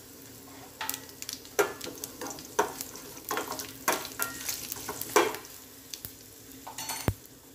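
A tempering of mustard seeds, green chillies, curry leaves and asafoetida sizzling in hot oil in a small stainless steel pan. A spoon stirs it, knocking and scraping against the steel in sharp clicks from about a second in until about five seconds in, with one more click near the end.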